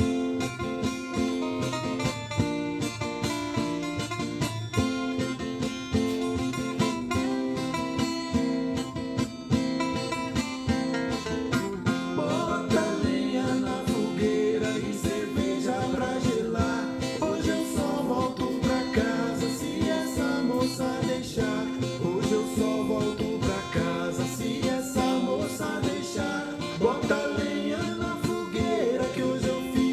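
Music led by acoustic guitar with a steady beat; about twelve seconds in, a melody line that bends in pitch joins it.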